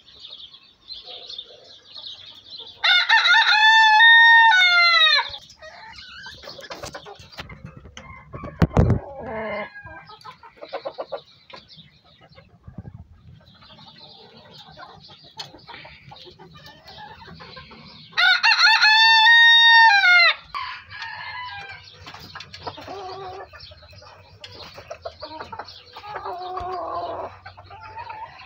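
Gamecocks crowing: two loud crows, each about two seconds long, one a few seconds in and one past the middle, with softer clucking and chicken chatter between them and a brief thump about nine seconds in.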